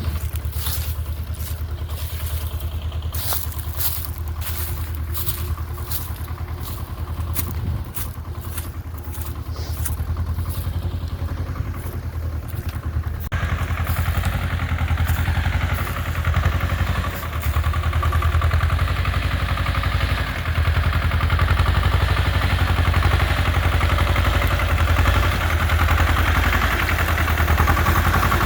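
Tractor backhoe engine running steadily while the machine is driven, with a rattle of short clicks and knocks in the first half. About halfway through the sound steps up suddenly and stays louder.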